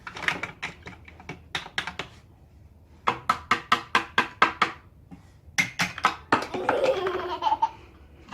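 Quick runs of sharp clicks and taps, about six a second at their fastest, as from plastic toy tools working, with a short laugh near the end.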